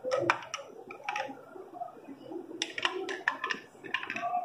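Spoon stirring sugar syrup into apple juice in a drinking glass, clicking against the glass in several quick runs.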